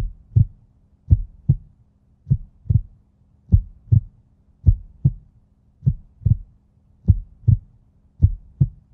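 Heartbeat sound effect: paired low thumps, lub-dub, about every 1.2 seconds, over a faint steady hum.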